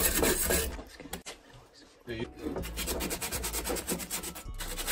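Sandpaper on a wooden block rubbed back and forth over a Honda Civic Si's steel clutch pedal bracket in quick scraping strokes, pausing for about a second near the middle before starting again. This is the bracket being sanded down around its cracks to prepare it for welding.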